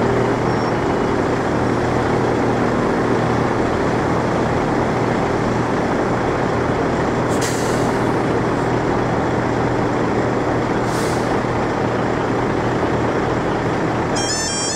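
Steady rumble of a heavy diesel lorry's engine, with two short air-brake hisses. Near the end the level crossing's alarms start up, a repeating stepped warning tone.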